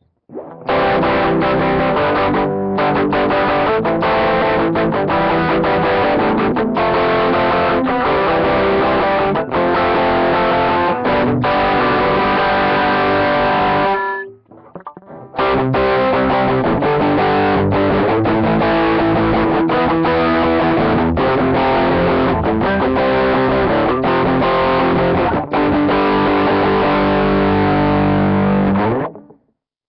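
Distorted electric guitar playing sustained chords: a Tokai Talbo guitar fed through a Roland GR-55 guitar synth that models a Les Paul Standard, a RAT distortion and a Roland JC-120 amp. It stops briefly about halfway, then plays again until near the end.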